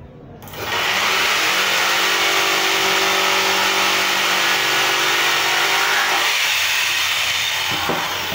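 Corded electric jigsaw starting up about half a second in and sawing through a wooden board, a steady motor hum under the rasp of the blade. The motor tone weakens about six seconds in, and there is a short knock near the end.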